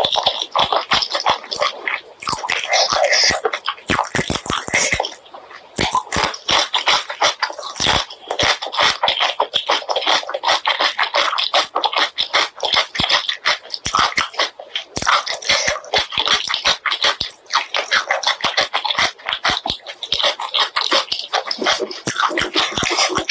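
Close-up mouth sounds of someone eating spicy pork leg curry with rice: rapid wet chewing and lip smacking in a dense run of clicks, pausing briefly twice.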